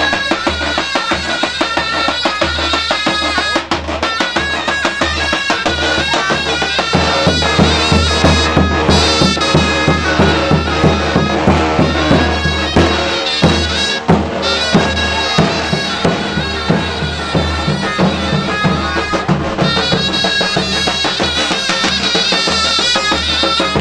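Live Turkish folk music: a zurna plays a shrill, ornamented melody over the steady beat of a davul bass drum. The drumming is busiest in the middle.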